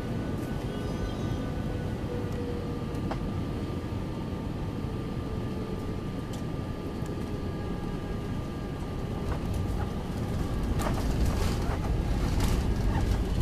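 Airliner cabin noise as the jet rolls on the ground after landing: a steady low rumble with faint steady whining tones. It grows louder with clattering rattles and knocks about ten seconds in.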